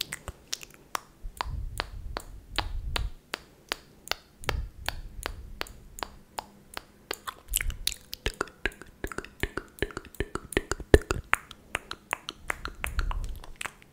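A quick, irregular series of sharp ASMR clicks right at the microphone, several a second, made to mimic eyebrows being plucked. A few soft low rumbles come in between.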